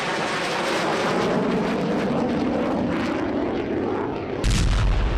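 Aircraft engine noise, a loud steady rush whose pitch slowly bends. About four and a half seconds in comes a sudden deep boom, an explosion.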